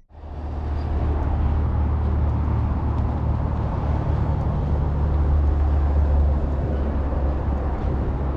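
A car driving, with a steady low engine and road rumble that fades in over the first second.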